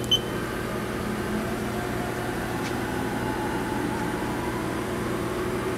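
Haas VF-3 vertical machining center's Z-axis being hand-jogged: a faint servo whine that drifts in pitch over the machine's steady electrical hum, with a short control-panel beep right at the start.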